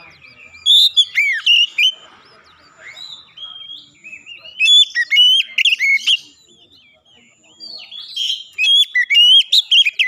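Oriental magpie-robin singing: three loud bursts of varied whistled phrases with quick rising and falling notes, separated by short pauses.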